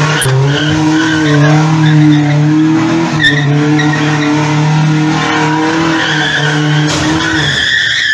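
Pickup truck engine held at high revs at a steady pitch while its tyres spin and squeal. Near the end the engine note drops away and a high tyre squeal rises briefly.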